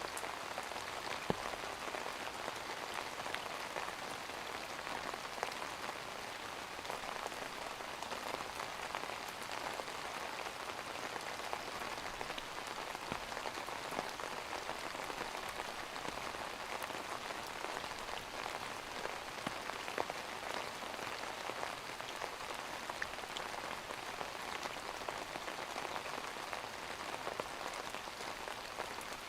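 Steady rain falling, an even patter with scattered single drops ticking through it.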